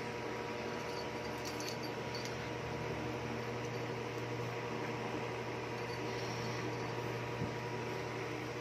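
Steady mechanical hum of a running appliance, with a few faint clicks about a second and a half to two seconds in.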